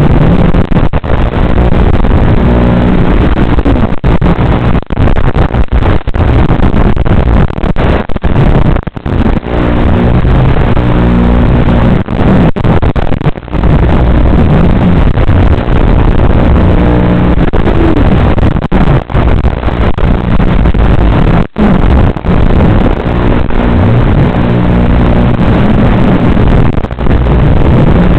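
Racing quadcopter's T-Motor F60 motors buzzing under a dense hiss, their pitch rising and falling as the throttle changes, with many brief dropouts.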